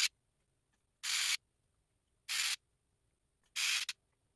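Pen-style electric screwdriver driving screws into 3D-printed plastic parts, heard in sped-up footage as three short hissing whirs about a second apart, with near silence between them.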